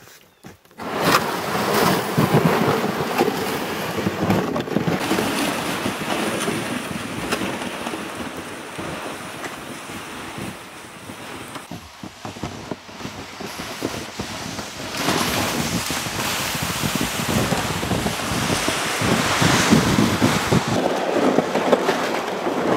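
A plastic sled loaded with firewood logs dragged on a rope over snow, a continuous scraping hiss, with footsteps crunching in the snow. It eases off for a few seconds in the middle and grows louder again near the end.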